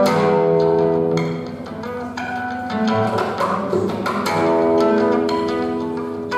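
Acoustic guitar playing, plucked chords and notes ringing out one after another.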